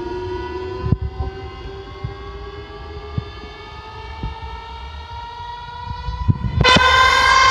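A siren-like tone, rich in overtones, slowly rising in pitch, jumping much louder about six and a half seconds in.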